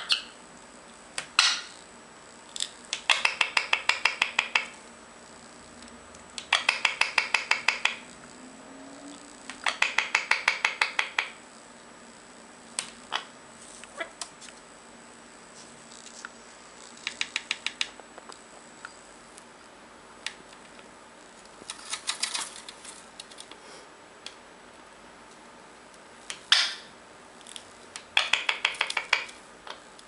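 Indian ringneck parakeet making rapid runs of clicking sounds, about eight clicks a second and a second or two long, repeated several times, with a few short sharp calls in between.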